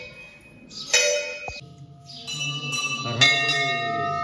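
Hanging temple bell struck twice, about a second in and again just after three seconds, each strike ringing on in several steady tones that slowly fade.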